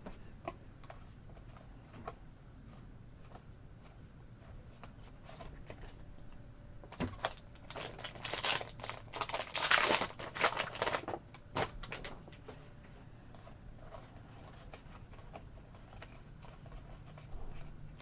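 Trading cards being handled, with scattered light clicks. From about seven seconds in, a card pack's wrapper crinkles and tears for several seconds.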